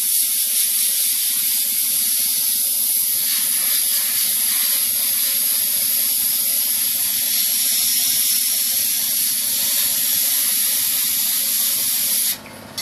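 Sandblasting cabinet's blast gun spraying abrasive onto a small metal part: a loud, steady, high hiss that cuts off suddenly near the end.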